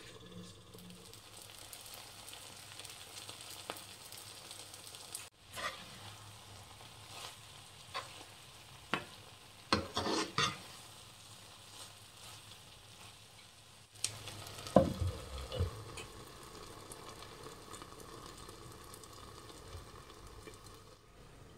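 Noodles sizzling as they fry in a pan, a steady hiss. Between about six and eleven seconds in, and again around fifteen seconds in, a utensil knocks and scrapes against the pan as the noodles are stirred.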